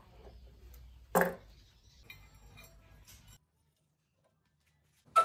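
Steel workshop parts knocking on a steel bench: one sharp, ringing metal clank about a second in, light handling noise after it, and a second clank at the very end. Between the two clanks the sound drops out to dead silence for almost two seconds.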